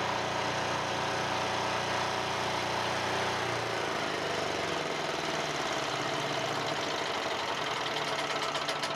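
Portable generator engine running steadily; about four seconds in its deep low hum drops away, leaving a lighter, steady hum.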